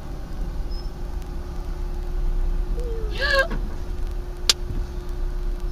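Steady low rumble of a moving car, with a faint steady hum, as recorded by a dashcam. About three seconds in comes a short wavering, pitched cry, and a second later a single sharp click.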